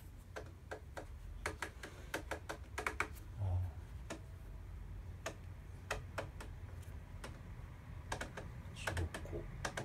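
Sansui AU-D607F amplifier's rotary selector knobs being turned through their detents: irregular runs of sharp clicks, thickest about one and a half to three seconds in and again near the end, with a soft bump about three and a half seconds in.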